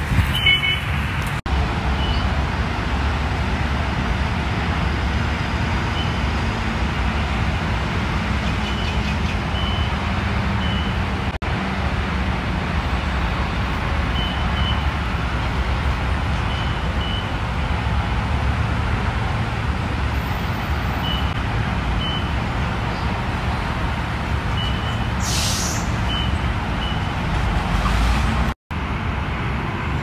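Steady rumble of heavy trucks and traffic at a highway roadworks site, with short faint high-pitched tones every few seconds.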